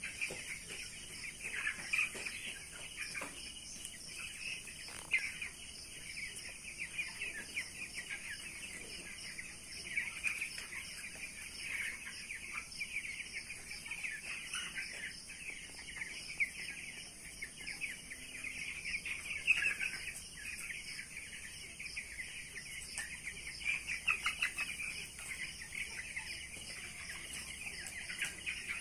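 A large flock of young broiler chicks peeping continuously, many short high calls overlapping, with a few louder ones standing out now and then.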